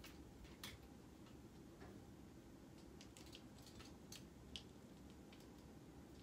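Faint, irregular clicks of clothes hangers knocking and sliding on a closet rod as clothes are handled, with a small cluster of clicks near the middle.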